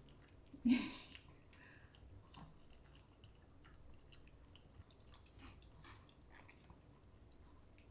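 Pomeranians lapping and eating from bowls: faint, scattered wet clicks and mouth sounds. A brief louder bump comes just under a second in.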